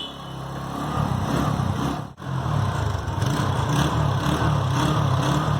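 A small engine or motor running steadily with a pulsing low hum, briefly breaking off about two seconds in.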